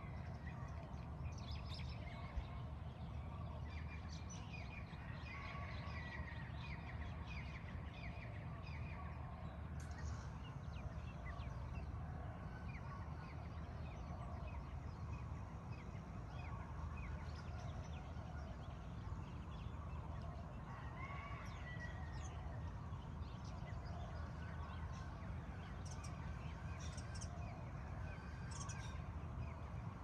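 Morning bird chorus: many birds chirping and calling over one another, with short trills and whistles throughout. A steady low rumble sits underneath.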